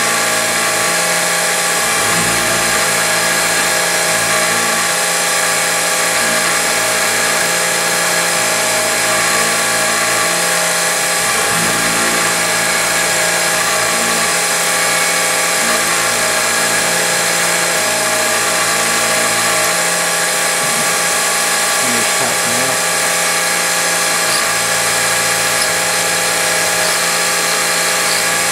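Syil X3 CNC mill's spindle running a 3 mm carbide end mill through aluminium bar, a steady whine with the cutting noise of the tool as it pocket-mills a hex hole under cutting fluid.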